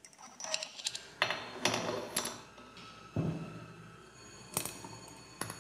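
Light clicks and knocks of metal and plastic CVT driven-pulley parts being handled and seated onto the pulley shaft of an RS800 transaxle, about half a dozen separate short sounds spread out.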